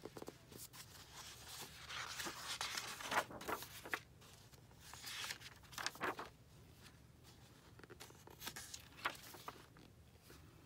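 Paper pages of a hardcover picture book being turned by hand: several separate rustles of paper sliding and flipping, with a few soft taps.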